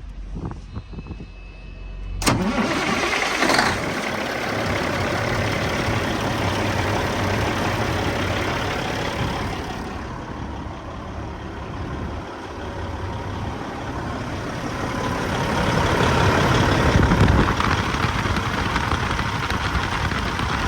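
Freightliner Classic semi truck's diesel engine started after a fan clutch replacement, catching suddenly about two seconds in and then running steadily at idle, a little louder near the end.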